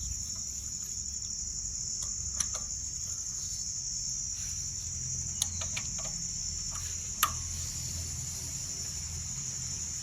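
Crickets trilling steadily in one high, unbroken tone, with three isolated sharp clicks about two and a half, five and a half and seven seconds in.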